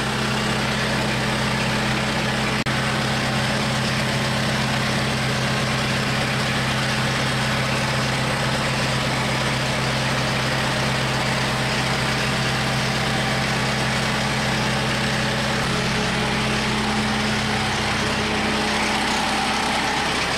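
Kubota M7060 tractor's four-cylinder diesel engine running steadily at idle.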